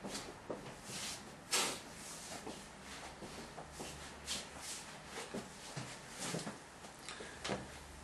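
Irregular soft knocks, clicks and rustling: a person moving about a small room and handling things off camera, over a faint steady hum.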